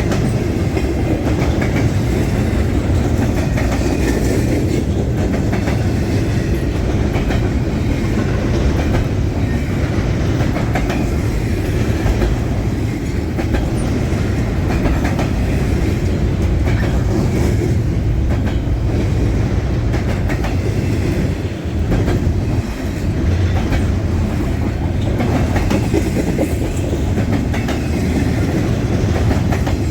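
Canadian National freight train rolling past at close range: a steady heavy rumble with the wheels clacking over rail joints.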